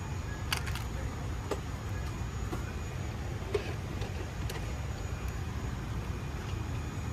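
Steady low hum of an airliner cabin's air and ventilation noise, with a few short crinkles and clicks as a plastic-wrapped pillow and blanket pack is handled.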